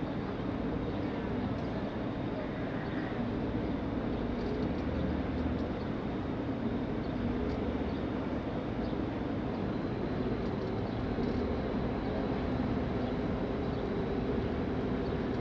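Passenger ferry under way: a steady engine drone with a constant rushing noise over it.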